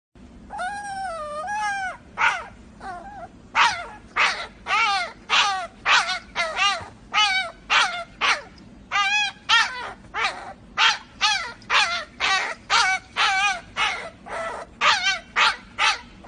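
A young puppy whining in a long wavering whine, then a rapid string of short high-pitched whimpering yips, about two to three a second.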